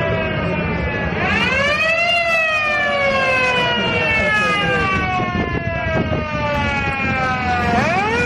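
Siren of a 1960 Italian ambulance wailing. Its pitch sinks to a low about a second in, then climbs quickly to a peak about two seconds in. It slides slowly down for nearly six seconds and climbs again at the very end. A low rumble runs beneath it.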